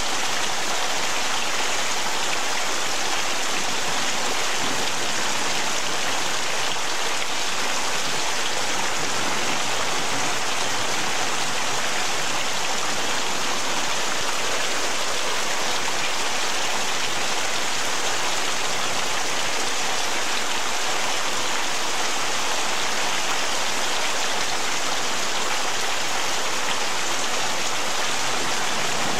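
Heavy rain pouring down steadily: a dense, even hiss of falling drops with no let-up.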